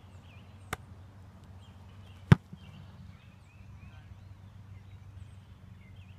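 A football being punted: one sharp, loud foot-on-ball thump a little over two seconds in, with a fainter click about a second earlier.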